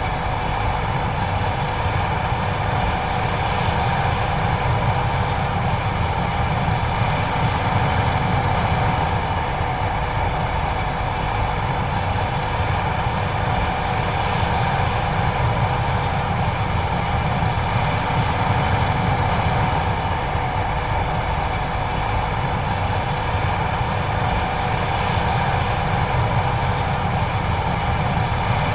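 John Deere 9570STS combine running steadily while harvesting corn: a constant heavy machine drone with a deep rumble and several steady whining tones over it.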